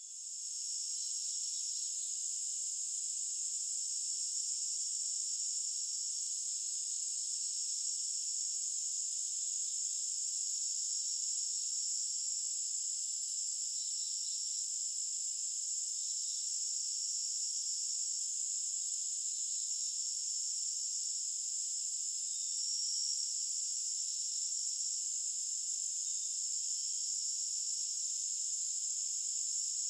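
Chorus of crickets, a continuous high-pitched trilling that stays level throughout.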